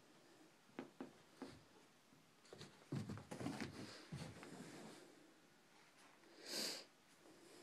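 American Bulldog puppy chewing and crunching a broccoli stem: a few sharp clicks, then a run of short crunches and knocks, loudest about three to four seconds in. One short breathy puff near the end.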